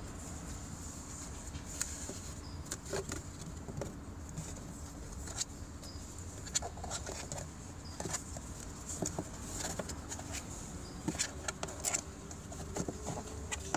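Hands handling the plastic cabin-air-filter access cover and pushing it back into place: scattered light plastic clicks and knocks, several in quick succession near the end, over a steady low hum.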